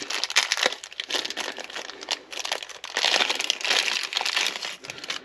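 Packaging crinkling and rustling as it is handled, a dense run of crackles that stops right at the end.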